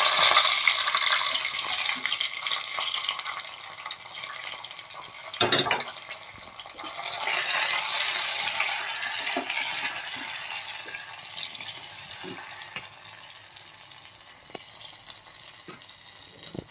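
Hot ghee with fried cashews poured into cooked sweet pongal, sizzling loudly at first and dying down. There is a short knock about five and a half seconds in, then a second surge of sizzling that slowly fades.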